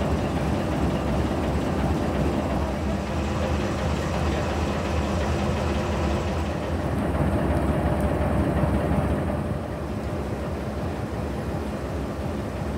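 GE B32-8 diesel-electric locomotive's V12 diesel engine idling close by: a steady low rumble that gets a little quieter about ten seconds in.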